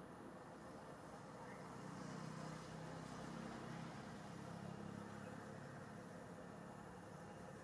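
Faint steady background hiss with a distant engine hum that swells about two seconds in and fades by about six seconds.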